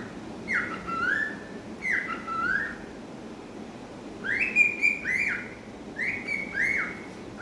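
Cockatiel whistling a newly learned tune in short repeated phrases of clear whistled notes that slide up and down, with brief pauses between phrases.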